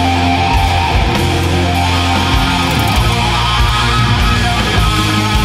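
Heavy rock music with electric guitar, playing steadily.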